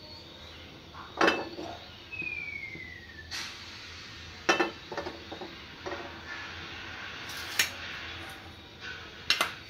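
Kitchen clatter: about half a dozen sharp, irregularly spaced knocks and clinks of dishes and utensils. There is a short falling whistle-like tone about two seconds in.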